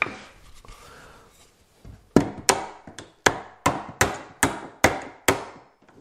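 Hammer blows: a single knock, then after a short pause a quick, even run of about nine sharp blows, roughly three a second.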